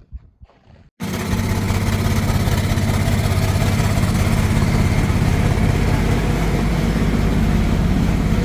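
A John Deere 425 riding mower's engine running steadily and loud, cutting in abruptly about a second in after a brief stretch of faint sound.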